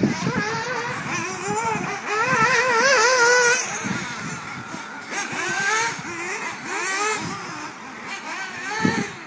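Several 1/8-scale nitro buggy engines whining and revving as they race round the track. About two seconds in, one comes closer and is loudest for a second and a half, its pitch warbling rapidly up and down as the throttle is worked.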